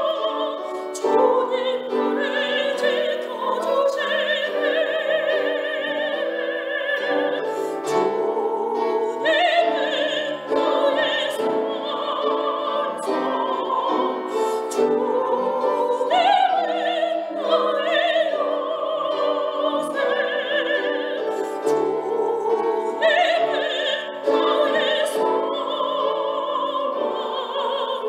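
A woman singing a Korean sacred song solo in a classical, operatic voice, with vibrato on held notes, over instrumental accompaniment.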